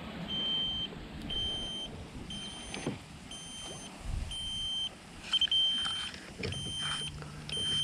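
A short, high electronic beep from the boat's electronics, repeating about once a second. About six and a half seconds in, a low electric motor hum starts, as the electric trolling motor comes on.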